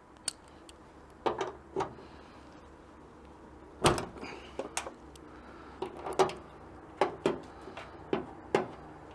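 Irregular metal clinks and knocks as a steel hood-light bracket is slid into place on a Toyota 4Runner's hood hinge and the bolts and tools are handled, about a dozen sharp hits with the loudest about four seconds in.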